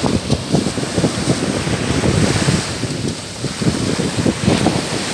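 Wind buffeting the microphone in an irregular low rumble over small waves breaking and washing up the beach.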